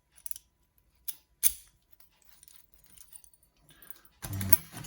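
Small metallic clicks from a picked Assa oval euro cylinder and the pick tools as the plug is turned back to the locked position, with one sharp click about a second and a half in. A louder stretch of metal rattling and handling follows near the end.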